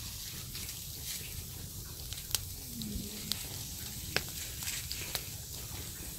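Wood campfire burning in a fire pit: a steady hiss with several sharp crackling pops scattered through, the loudest about four seconds in.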